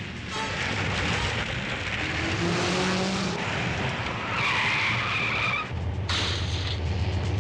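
Vehicle engines running and tyres skidding on dirt, with a high tyre squeal held for about a second some four and a half seconds in. There is an abrupt change just after it, when a low steady engine hum takes over.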